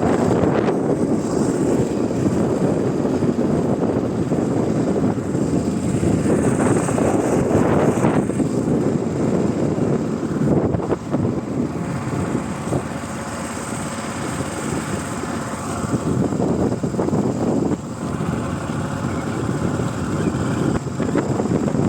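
Motorboat engine running steadily, with wind rushing over the microphone. It is a little quieter for several seconds in the middle.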